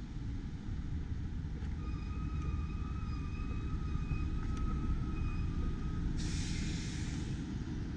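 A vehicle running close by: a low rumble, with a steady high whine for about four seconds, then a loud hiss lasting over a second near the end.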